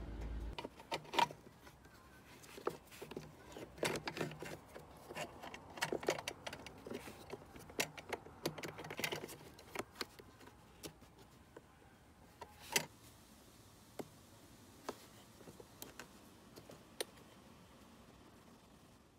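Small clicks and rattles of a scooter fuel pump, its rubber fuel hoses and metal spring hose clamps being handled and pushed into place by hand. There is a dense run of sharp clicks in the first half, then single clicks every second or two, the loudest about two-thirds of the way through.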